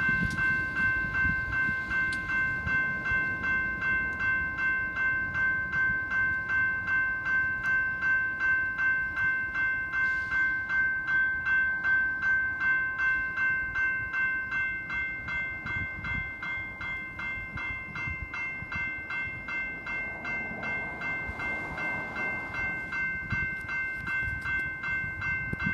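Railroad grade crossing bell ringing steadily, about two strikes a second, with a low rumble underneath. The crossing stays activated with no train at it, which the operator calls a crossing malfunction.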